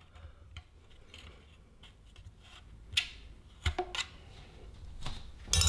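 Plastic trim ring being pried off a Polk Reserve R200 speaker's bass driver with a kitchen utensil: scattered light clicks and scrapes, a sharp click about three seconds in, and a louder crack near the end.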